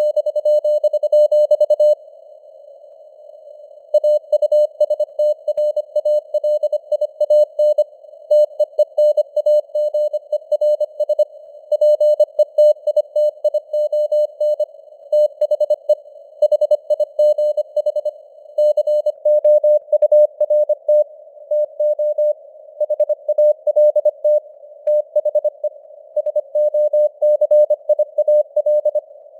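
Morse code sent at 25 words per minute: a single steady tone keyed rapidly on and off in dots and dashes, over a narrow band of simulated radio hiss, with a pause of about two seconds near the start.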